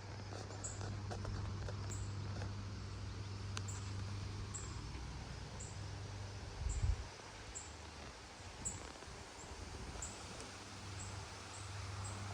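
Gusty wind blowing, with a low steady hum that fades mid-way and a loud low buffet on the microphone about seven seconds in. A short high chirp, most likely an insect, repeats about once a second throughout.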